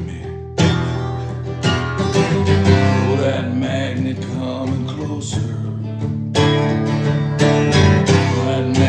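Guitar strumming chords in an instrumental stretch of a song, with a short break about six seconds in.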